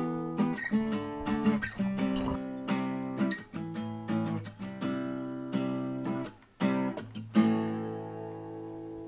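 Background music of strummed acoustic guitar chords in a steady rhythm, ending on a last chord that rings out and fades.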